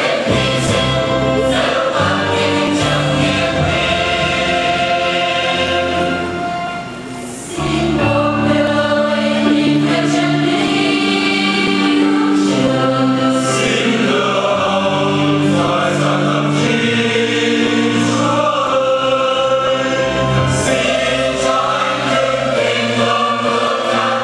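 Choir singing a hymn in long held chords, with a brief drop between phrases about seven seconds in.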